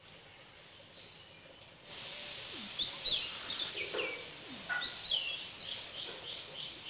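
Birds chirping: repeated short swooping calls, joined near the end by a quick regular run of chirps. A steady high hiss sets in about two seconds in.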